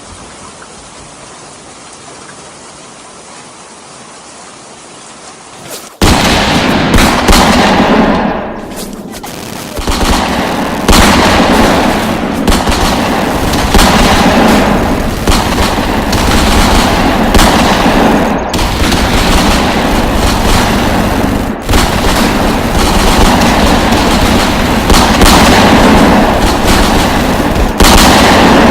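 Steady rain, cut off abruptly about six seconds in by loud, dense gunfire sound effects: rapid machine-gun bursts and overlapping shots that run on without a break.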